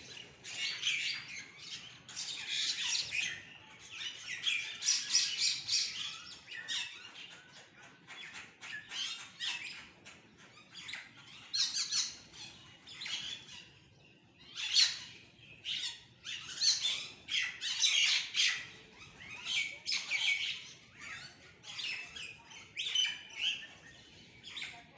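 Several birds chirping and calling in quick, overlapping bursts, with short lulls between flurries.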